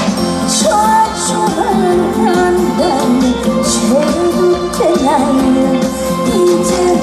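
A woman singing a trot song live over band accompaniment, her sustained notes wavering with vibrato.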